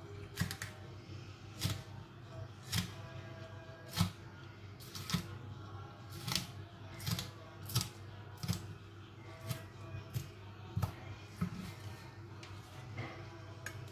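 Kitchen knife slicing green onion on a wooden cutting board: single sharp knocks of the blade against the board, about one a second, unevenly spaced.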